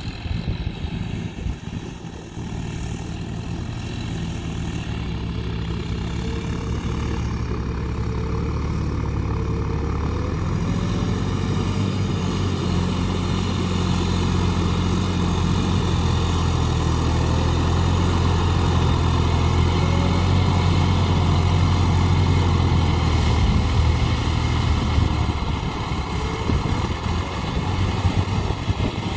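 John Deere farm tractor's diesel engine running steadily under load as it pulls a rotary tiller through wet paddy mud, a low, even drone that grows gradually louder as the tractor draws near and eases off near the end.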